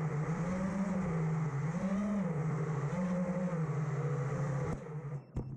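Small electric motors humming, their pitch rising and falling about once a second. They stop near the end, followed by a couple of sharp clicks.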